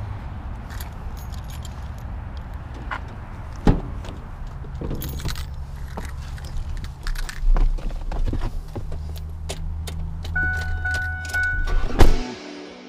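Keys jangling and the clicks and knocks of a pickup truck's door being opened and climbed into, over a steady low rumble. Near the end comes a chime of a few short repeated beeps, then a loud slam as the door shuts.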